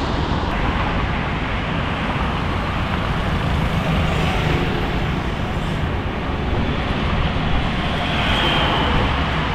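Fast road traffic on a busy highway: a steady rumble and hiss of passing cars.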